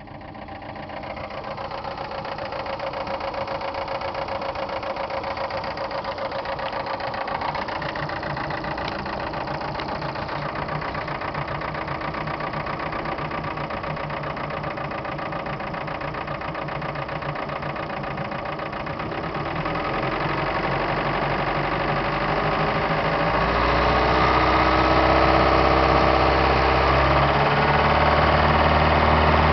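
Mercruiser 3.0 GM four-cylinder sterndrive engine idling with a dieseling knocking sound, which the owner traced to the timing gear cover area and has been told is normal at idle for this engine. It grows louder about two-thirds of the way through.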